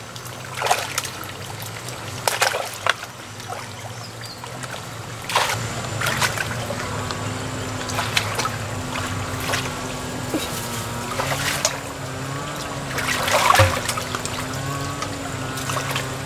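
Hands and legs splashing and sloshing in shallow muddy water, with irregular splashes every second or two, over the steady low hum of a motor-driven water pump draining the pool.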